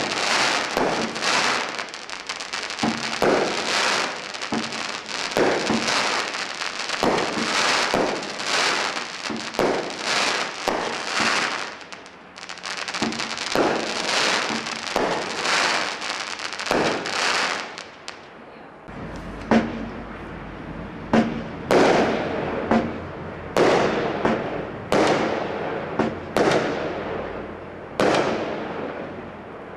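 Consumer firework barrage cakes firing: dense, overlapping popping and crackling bursts for about eighteen seconds, then a short lull, then a run of separate sharp bangs about one to one and a half seconds apart, each trailing off.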